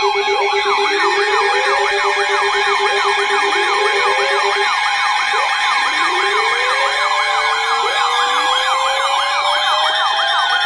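Several emergency alert tones sounding at once, the alarms of a new weather warning. A fast siren-like warble of about four cycles a second runs over steady alert tones, with a rapid beeping that stops about halfway through and slower rising wails every couple of seconds.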